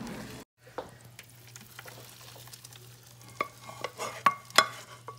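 Hot toffee being poured from a saucepan onto a parchment-lined metal sheet pan, with soft scraping and sticky stirring sounds. From about the middle on come sharp clinks and taps of cookware, several a second apart, over a faint steady hum.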